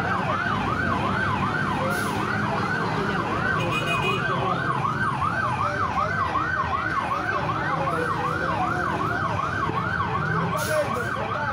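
Emergency vehicle siren in a fast yelp, rising and falling about three times a second without a break, over the steady low hum of a heavy truck engine.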